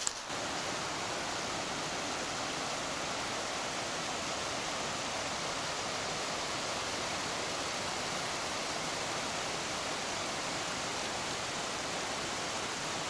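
Steady, even rushing of running water from a mountain stream or spring.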